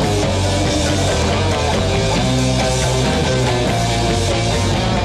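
Background rock music with guitar and a steady dense mix, laid over the footage.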